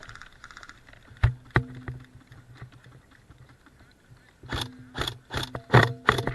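Airsoft gun firing single shots, each a sharp clack: two about a second in, then a run of about six in quick succession near the end.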